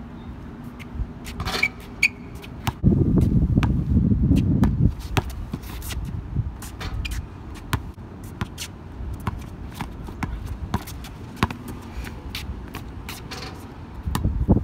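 Sounds of a one-on-one basketball game on an outdoor court: the ball bouncing and sneakers scuffing on the court surface, with a couple of short squeaks about two seconds in. A loud low rumble lasts about two seconds, starting around three seconds in.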